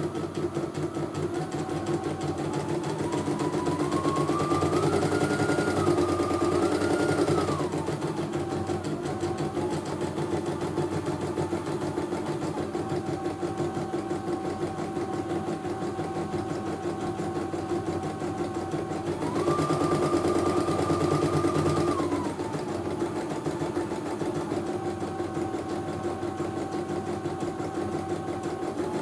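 CNY E900 computerized embroidery machine stitching in its hoop: a rapid, even needle clatter over the motor's whine. The whine rises in pitch and gets louder twice as the machine speeds up, about four seconds in and again about nineteen seconds in, then settles back.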